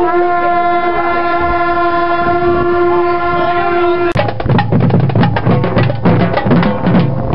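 A single steady horn-like tone held for about four seconds and then cut off, followed by a marching-band drumline playing snare and bass drums in a regular beat over a low steady tone.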